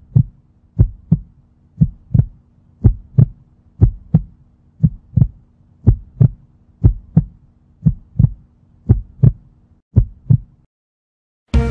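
Heartbeat sound effect: a steady lub-dub double thump about once a second over a faint low hum, stopping shortly before the end.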